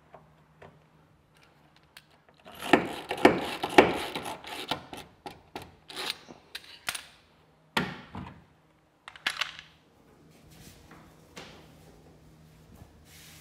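Stanley Yankee spiral-ratchet screwdriver pumped to drive a screw into a cedar plank: a dense run of ratcheting clicks and grinding for several seconds, starting a couple of seconds in, then two shorter bursts.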